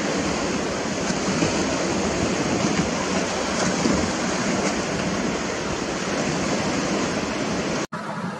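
Steady rushing coastal ambience of wind and sea. It cuts out for an instant near the end, then similar, slightly quieter rushing noise carries on.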